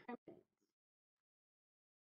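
Near silence: a brief faint sound in the first half-second, then dead silence.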